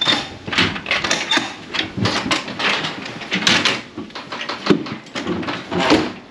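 Rubber boots clumping up the ridged aluminium floor and ramp of a livestock trailer, with irregular metallic knocks and rattles.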